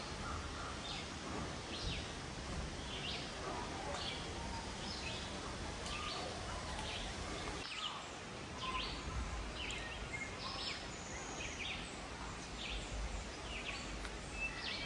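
Small birds chirping: short, high chirps repeating about once or twice a second, over a steady low background rumble.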